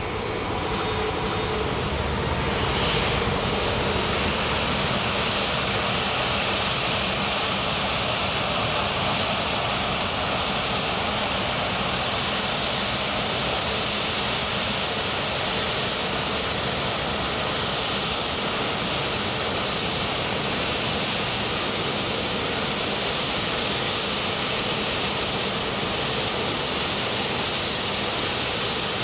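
Jet engines of a Lufthansa Airbus A380-800, Rolls-Royce Trent 900 turbofans, running steadily as a continuous rushing noise that swells slightly in the first couple of seconds and then holds even.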